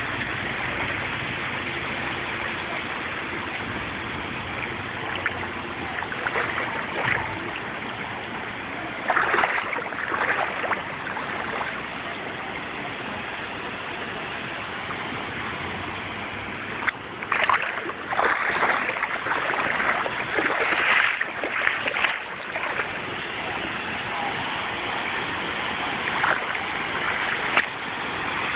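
Floodwater rushing and washing steadily, with louder surging bursts about nine seconds in and again through the middle of the second half.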